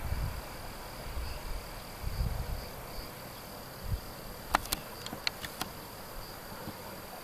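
Insects chirping in a steady, pulsing high trill. There are a few low rumbles, and a handful of sharp clicks about four and a half to five and a half seconds in.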